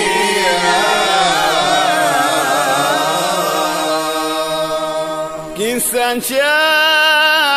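Swahili qaswida being sung: chanted voices in a melismatic, ornamented melody. About six seconds in the line breaks for a moment with short sliding notes, then resumes as a clear, wavering held line.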